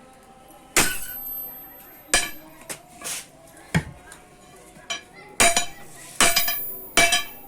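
Irregular metal-on-metal clanks and strikes, about nine in all, several leaving a short high ring: pieces of steel being struck and handled in a blacksmith's work. The loudest strikes come about a second in and in a cluster near the end.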